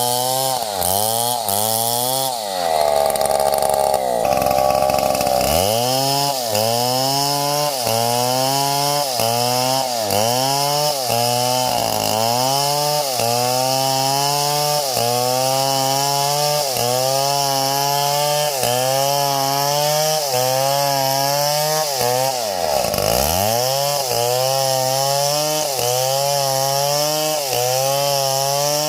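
Two-stroke chainsaw cutting wood at high revs, the engine pitch sagging and recovering about once a second as the chain bites into the cut. For a few seconds near the start it holds a steady high pitch, and about two-thirds through the revs fall almost to idle and climb straight back.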